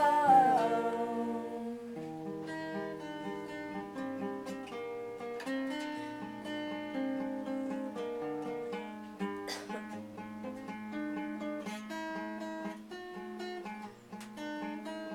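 Guitar playing an instrumental passage of single notes, picked one after another. A held sung note slides down and fades out in the first second.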